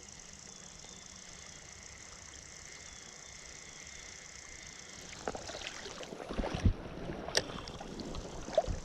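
A steady hiss of flowing river water, then from about halfway through irregular splashing and sloshing of water with a few dull knocks and a sharp click.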